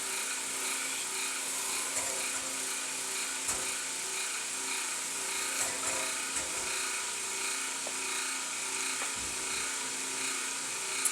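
Steady mechanical hum made of several constant tones over a hiss, with a few faint small clicks.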